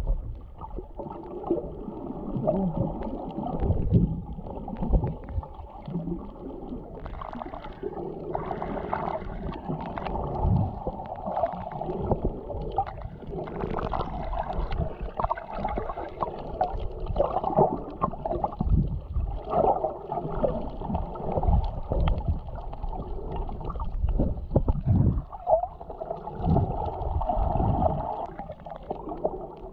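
Muffled sound of water heard through a camera held underwater while snorkeling: dull rumbling and gurgling of moving water, with irregular dull thumps.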